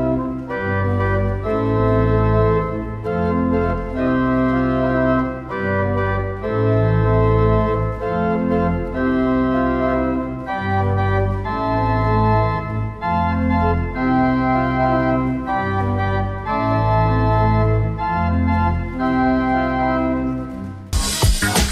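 Organ music: slow, sustained chords over deep bass notes, changing every second or so. Just before the end it gives way abruptly to a brighter, busier music track.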